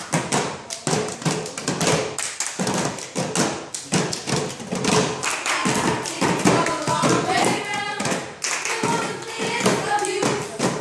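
Many hands clapping and slapping on the wooden tablet tops of classroom desk-chairs, a dense run of quick taps and thuds from a group playing a hand-percussion game.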